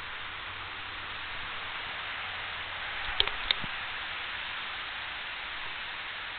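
Steady hiss of recording noise, with two sharp clicks in quick succession a little past the middle.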